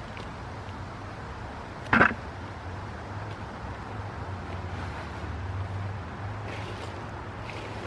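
A steady low hum under general background noise, with one short, sharp knock about two seconds in and a few faint ticks later on.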